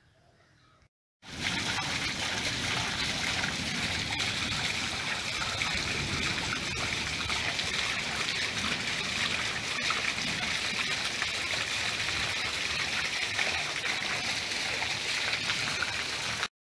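Steady rush of running water, starting abruptly about a second in and cutting off abruptly near the end.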